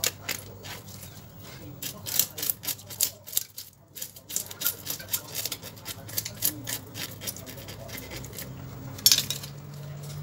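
A knife scraping the scales off a Nile tilapia on a wooden chopping block: quick rasping strokes, several a second, with a brief pause around the middle and one sharper stroke near the end.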